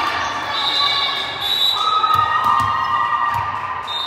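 Volleyball spectators and players cheering and shouting, with several high, drawn-out calls, echoing around a gymnasium.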